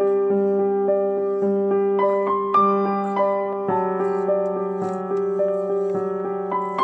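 Background piano music: a gentle melody of notes struck every third of a second or so over sustained low notes.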